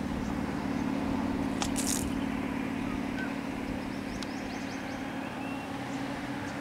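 Engine of a stopped vehicle idling steadily, with a brief hiss about two seconds in.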